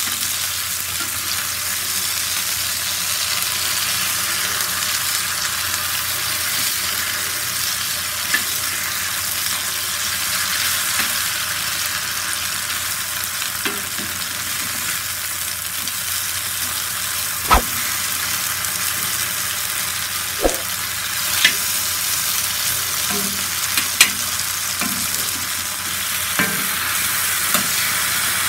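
Raw plantain slices shallow-frying in oil on a dosa tawa: a steady sizzle. Over it come a handful of sharp clicks in the second half, as a spatula knocks on the pan while the slices are turned over one by one.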